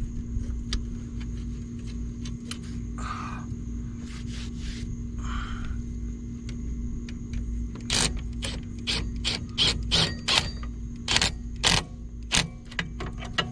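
Socket ratchet clicking as a bolt is run down on the lowrider's front hydraulic cylinder mount, a few scattered clicks at first, then a quick run of ratchet strokes from a little past halfway on, over a steady low hum.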